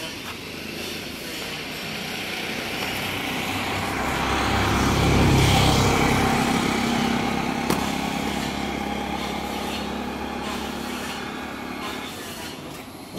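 A road vehicle passing by. Its engine and tyre noise swells to a peak about five seconds in and then fades slowly. A single sharp click comes near eight seconds.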